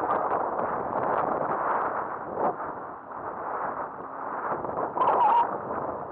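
Wind rushing over a mountain biker's helmet camera as the bike rolls down a paved trail, with the bike's clicks and rattles throughout. A brief wavering squeal sounds about five seconds in.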